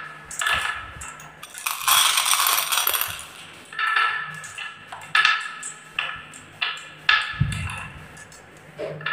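Glass marbles being set one at a time into a wooden slope track, clicking and clinking against each other and the wood, each click with a short glassy ring. A longer stretch of rattling about two seconds in, and a dull thump about seven seconds in.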